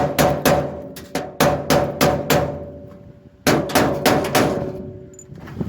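Rapid hammer blows on a metal tool box, in two runs of about four strikes a second with a pause of about a second between them, the box ringing under each blow. The blows knock at the lock that has just been drilled through, to force the box open.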